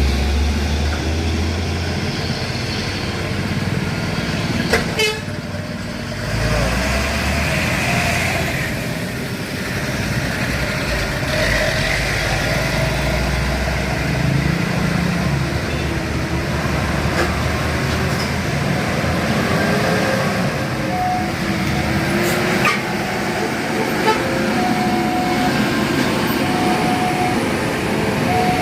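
Heavy road traffic of large diesel trucks and buses running past, with a deep engine rumble at first. Horns sound, and in the second half there are short steady horn tones repeated at a few different pitches.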